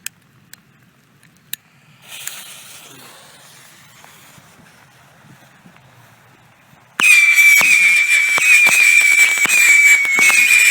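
A few faint clicks and a soft hiss, then about seven seconds in a Saturn missile battery goes off suddenly: a steady high-pitched whistle from the missiles with many rapid sharp cracks of their reports.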